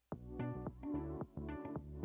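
Background music starting abruptly out of silence, with a bass line and repeated chords in a steady rhythm.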